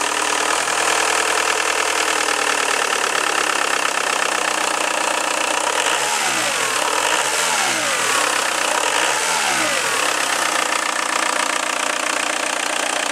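Volkswagen T3's swapped-in TDI turbodiesel engine idling, revved up and back down three times between about six and ten seconds in, then settling back to idle.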